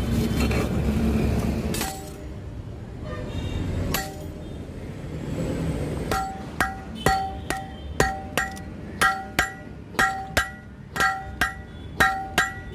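Hand hammer forging a red-hot billhook blade on an anvil. The strikes come about two to three a second, each with a ringing clang, and they begin about six seconds in after a rushing noise and a couple of single clanks.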